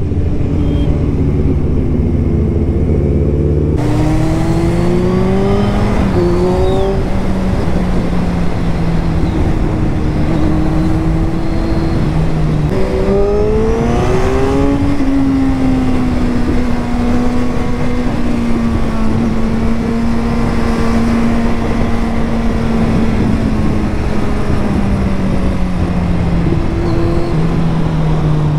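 Kawasaki Z1000R's inline-four engine pulling hard through the gears: the pitch climbs and drops back at each upshift about four seconds in, again around thirteen seconds and near the end. In between it cruises at a steady, slowly falling pitch, under wind noise.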